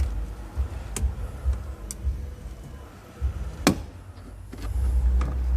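Sharp clicks and knocks of a car's plastic interior trim being handled while a Bluetooth microphone wire is tucked behind it. There are four clicks, the loudest about two-thirds of the way through, over a low uneven rumble.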